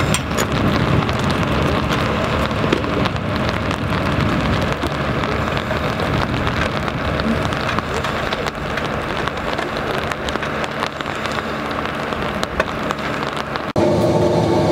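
Steady hiss and patter of falling water on wet pavement, with many small crackles throughout and a faint hum beneath. Near the end it cuts abruptly to a different steady machine drone.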